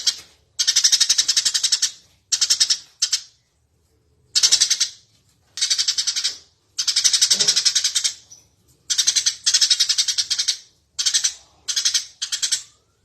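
Eurasian tree sparrow chattering in quick bouts of rapid, high chirps, each bout lasting about a second, with short breaks between them and one longer pause a few seconds in.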